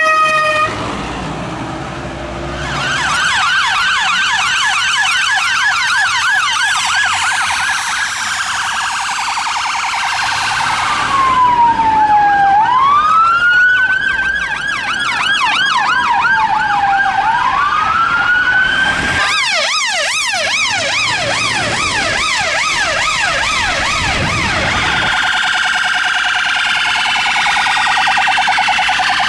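Electronic sirens of UK emergency vehicles. A fast yelp switches about eleven seconds in to a slow wail that rises and falls twice, goes back to a fast yelp, and changes near the end to a steadier, rapidly warbling tone.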